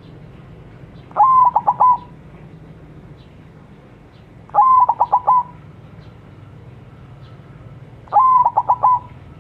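A white zebra dove (perkutut) in full song, cooing three times about three and a half seconds apart. Each phrase is a longer opening note followed by a quick run of about four short coos, under a second in all.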